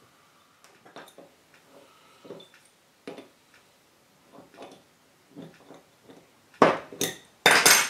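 Hands working a motorcycle carburettor and small tools at the main jet holder: scattered light metallic clicks and taps, then two loud metal clatters near the end.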